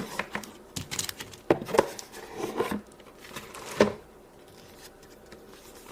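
Cardboard and paper packaging of a clay craft kit being rummaged and handled: irregular rustles with a few light knocks, quieter over the last two seconds.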